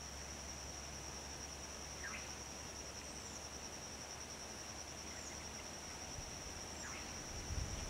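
Steady, high-pitched insect drone holding one unbroken tone, with a few brief bird chirps now and then.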